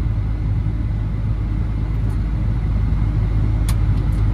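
Combine harvester running steadily with a deep, even drone, with a couple of faint clicks near the end. The header is plugging with green canola.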